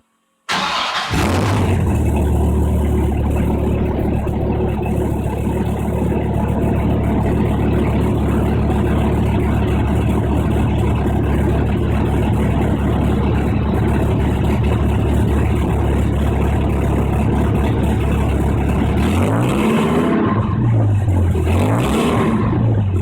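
Dodge Viper GTS V10 engine with 3.5-inch Moroso Spiral Core mufflers starting up about half a second in, then idling loud and steady. Near the end come two quick throttle blips, the revs rising and falling each time.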